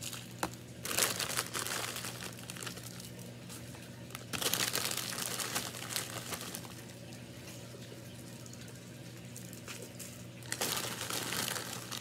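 Plastic candy bags crinkling as they are handled, in bursts about a second in, from about four to six seconds in, and again near the end, over a steady low hum.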